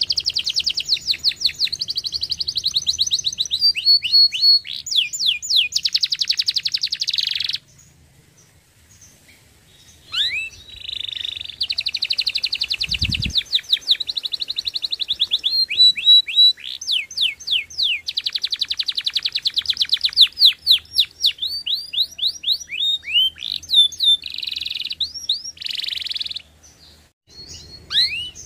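Canary singing: long, fast trills and rolls mixed with quick sweeping notes, breaking off for a pause of a couple of seconds about eight seconds in and again briefly near the end. A short low thump about thirteen seconds in.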